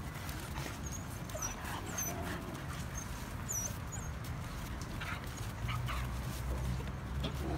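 Young dogs playing and sniffing at each other, giving brief whimpers and squeaks now and then over a low steady rumble.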